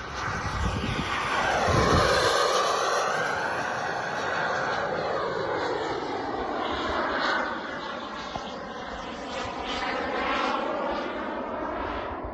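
Radio-controlled F-4 Phantom model jet flying a fast pass. Its jet noise swells to a peak about two seconds in, then runs steadily and a little lower as the jet climbs away into the sky.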